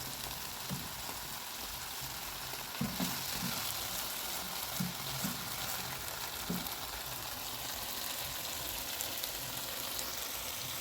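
Cow liver frying with tomatoes and spices in a pan, a steady sizzle, with a few short knocks of stirring in the middle.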